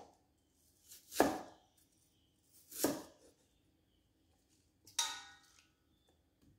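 A cleaver chopping through onion and striking a wooden chopping board: two slow cuts about a second and three seconds in. Near five seconds there is a sharper knock with a short ring.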